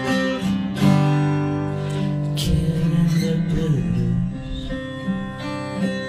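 Acoustic guitar played fingerstyle, with plucked notes and a bass line ringing on.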